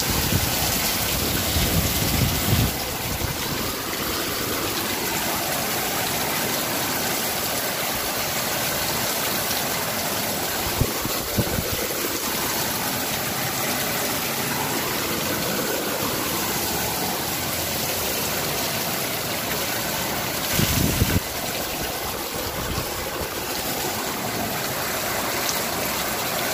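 Muddy floodwater rushing in a torrent down a street during heavy rain: a loud, steady rushing noise, with a few brief low bumps.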